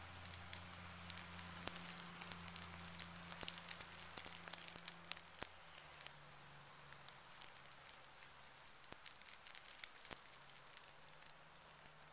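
Wet birch bark and tinder burning in the hand, crackling with many scattered small snaps over a steady hiss; the snaps are busiest in the first half. A faint low hum runs underneath.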